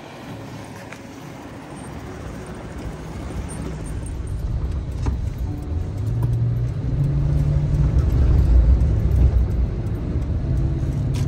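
Car engine and road noise heard from inside a moving car's cabin, growing louder; the low engine hum steps up and down in pitch a few times in the second half.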